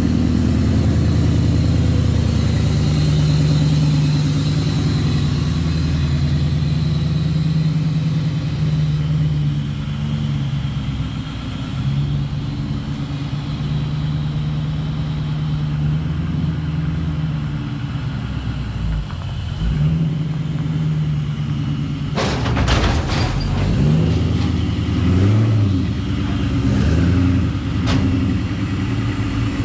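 Supercharged Fox-body Mustang's V8 running steadily as the car is driven up and onto an open car trailer. About 22 seconds in come a few knocks and clanks as it climbs the ramps, followed by short blips of throttle.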